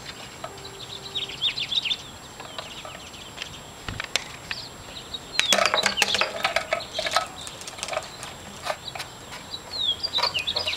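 Small birds chirping, with short falling calls, and a dense flurry of chirps and sharp clicks about halfway through. Light clicks of plastic come from the fuel tank's strainer cup being handled.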